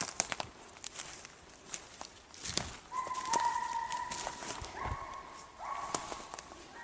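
Russian hounds baying in long drawn-out notes, beginning about three seconds in and sometimes overlapping as two voices at once, the sound of hounds giving tongue on a chase. Before that come footsteps and sharp snaps of twigs on the forest floor.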